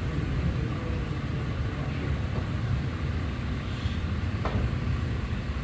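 Steady low rumble of room noise in a snooker hall, with a single short click about four and a half seconds in as the cue tip strikes the cue ball.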